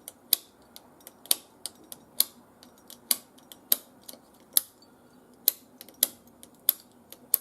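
Rotary range selector switch of a Metex M-3650 multimeter being turned through its positions: a series of sharp detent clicks at an uneven pace, roughly one every half second to a second.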